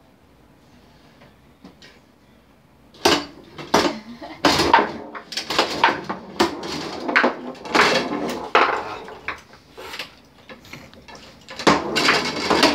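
Foosball game in play: rapid, irregular sharp knocks and clacks of the ball being struck by the rod players and hitting the wooden table, with rods banging against the frame, starting about three seconds in.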